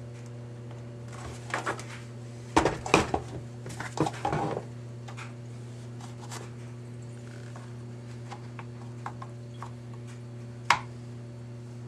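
Hard plastic knocks and clatters as a removed center console panel is handled and turned over, a cluster of them a couple of seconds in and one sharp click near the end, over a steady low hum.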